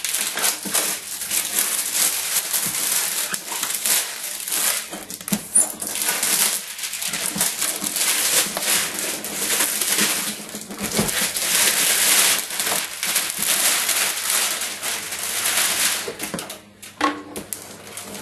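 Clear plastic shrink-wrap crinkling and tearing as it is cut and pulled off a cardboard box, mixed with the rustle and scrape of the cardboard being handled. It is loud and continuous, then thins out near the end.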